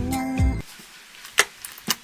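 Background music stops about half a second in. Then clear slime packed with red beans is handled and squeezed, giving sharp crackling clicks, with two louder pops near the middle and the end.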